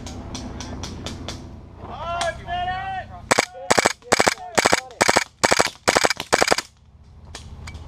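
KWA M93R gas blowback airsoft pistol firing a rapid string of sharp bursts for about three seconds, each burst a few shots close together, loud and close at hand.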